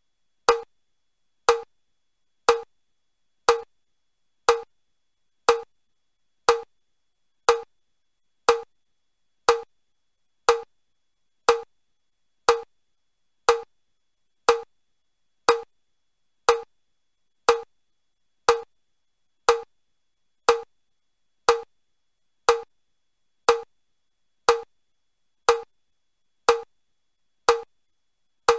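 Metronome clicking steadily at one beat a second, the level 1 stepping pace of the Chester step test: one step movement (up, up, down, down) on each beat.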